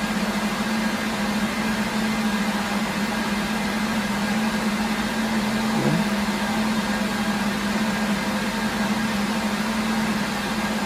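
Steady whir of cooling fans from a rack of running network gear and servers (a Cisco UCS 6296UP fabric interconnect and HP ProLiant DL380p servers), with a steady low hum running under it.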